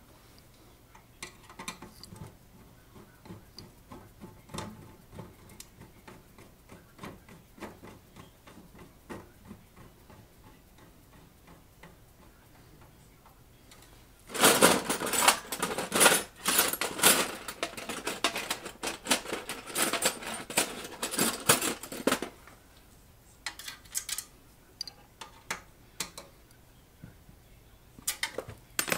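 Loose steel screws and nuts clinking and rattling as a hand rummages through a tray of small metal hardware, dense for about eight seconds from about halfway through. Before that, faint scattered ticks of small metal parts being handled, and a few more short clicks near the end.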